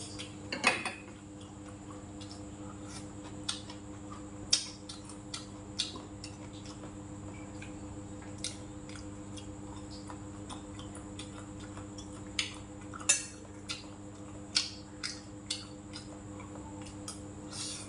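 Wooden chopsticks clicking and scraping against a metal rice bowl. The light clinks come irregularly, about every second or so, over a steady low hum.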